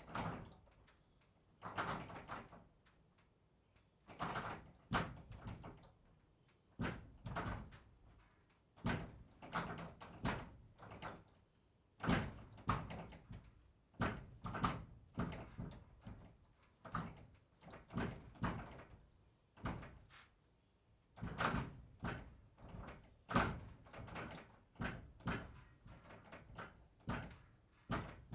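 Barn door banging repeatedly: a long series of sharp knocks and slams, often two or three close together, each with a short rattle, about one every second or two.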